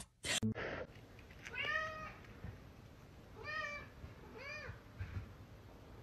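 A cat meowing three times. The short meows rise and fall in pitch: one comes about a second and a half in, and two more come close together a couple of seconds later.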